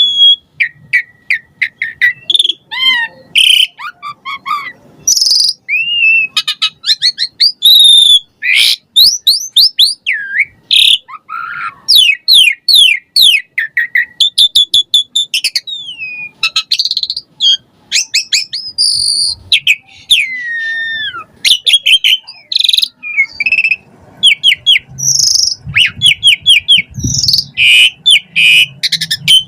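Asian pied starling (jalak suren) singing nonstop: a fast, varied string of whistles, chirps, rattling trills and notes that glide up and down.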